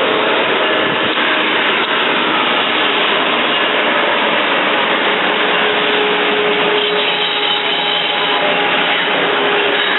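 Passing train: a steady, loud rush of wheels on rail, with faint high squealing tones coming in during the second half.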